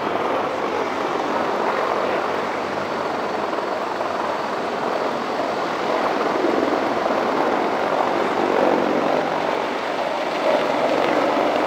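Large military helicopter flying low overhead, a steady rotor and engine noise that grows a little louder in the second half.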